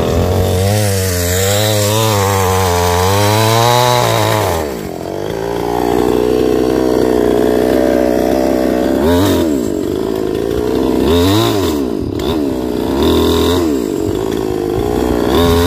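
Two-stroke chainsaw cutting through the branches of a felled tree. It runs at high revs with the pitch wavering for about four seconds, drops back to a steady idle, and is blipped up three times. It then revs high again near the end.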